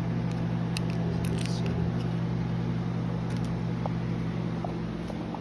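A steady low machine hum, with a few faint light clicks and taps over it.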